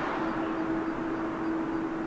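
Jet noise from a Boeing 787-8 airliner coming in to land: the engine roar fades away over the two seconds, over a steady humming tone.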